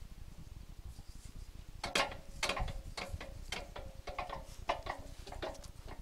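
Metal clicking and ratcheting from a sawmill's toe-board adjustment mechanism being worked by hand, an irregular run of sharp clicks with a slight ring, starting about two seconds in.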